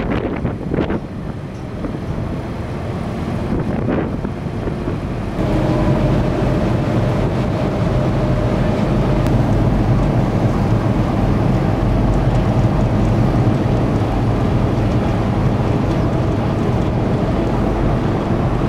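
Wind buffeting the microphone on a car ferry's deck, with a few knocks; about five seconds in it gives way to the steady drone of the ferry's engine under the wash of water rushing past the hull.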